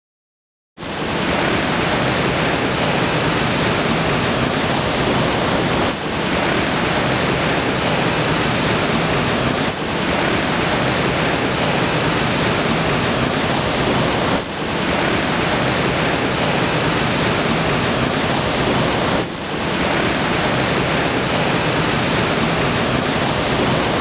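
Waterfall rushing: a steady, even roar of falling water that starts about a second in, with four brief dips where the recording is cut.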